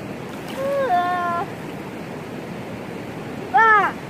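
Steady rush of flowing lake water, with a child's voice giving two short high calls: a rising then held one about a second in, and a louder falling one near the end.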